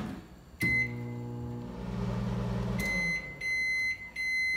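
Brastemp microwave oven starting with a short beep and humming steadily as it runs for about two seconds. It then stops and sounds its end-of-cycle alert, three long, evenly spaced high beeps.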